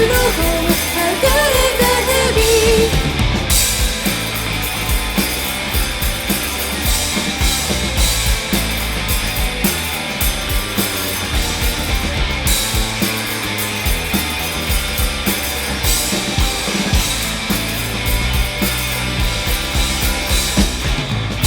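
Four-piece rock band playing an instrumental passage with a steady drum-kit beat. A sung line trails off in the first few seconds.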